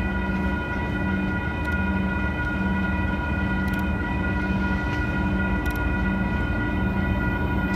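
Passenger train running: a steady low rumble, with several constant high ringing tones and a low hum that pulses on and off about once a second.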